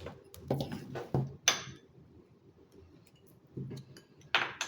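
A handful of light knocks and clinks of small hard objects being handled, the sharpest about a second and a half in.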